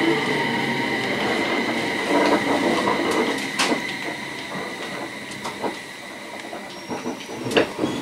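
Interior of an electric commuter train braking to a stop at a station. The running noise and a steady high whine fade out over the first few seconds. The cabin then goes quieter, with a few sharp clicks and knocks near the end.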